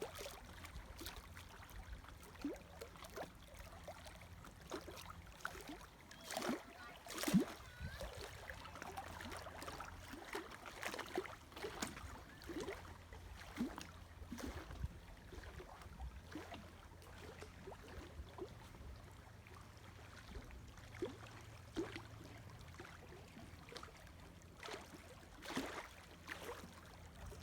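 Faint water sounds on a lake: irregular small splashes and gurgles, a little louder about a quarter of the way in and again near the end, over a steady low rumble.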